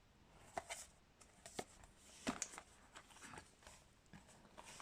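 Faint, scattered light clicks and taps of small objects being handled, about half a dozen soft ticks over a few seconds, against near-silent room tone.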